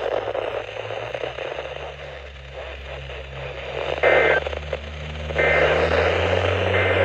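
Weather radio receiver hissing with static over a low hum. In the second half, three short bursts of two-tone EAS end-of-message data come through the static about a second and a half apart, marking the end of the broadcast alert test.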